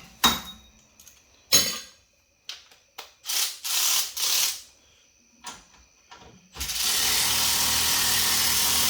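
Sharp metal clanks and short ratchet clicks as tools work on the hub. About six and a half seconds in, a cordless electric ratchet starts running steadily, backing out a hub bearing bolt.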